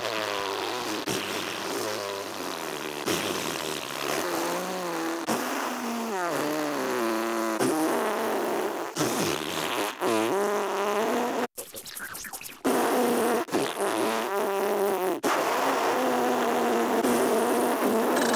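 Cartoon spit-take: a character sprays juice from pursed lips in a long, sputtering spray whose pitch wobbles up and down. It breaks off briefly about eleven and a half seconds in, then carries on.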